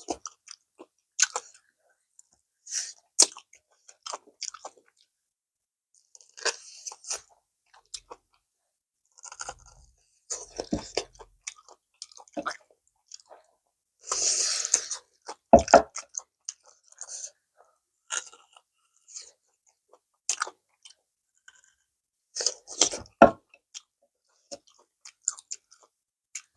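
Close-miked chewing and crunching of food in irregular bouts of short clicks and smacks, with pauses between mouthfuls; a longer, louder burst comes about halfway through.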